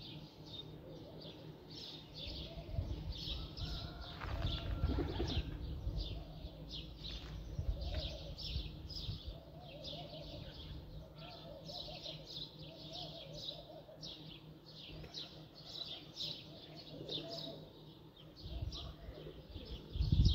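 Small birds chirping continuously in quick, high, short notes, with pigeons cooing low and repeatedly underneath. A low rumble rises a few seconds in and again near the end.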